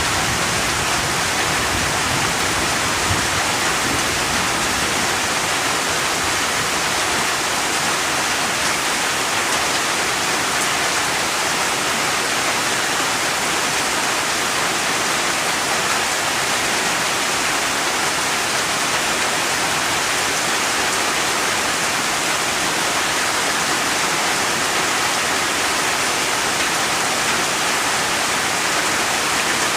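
Steady, dense rain: a constant hiss of falling rain with no distinct drops or breaks.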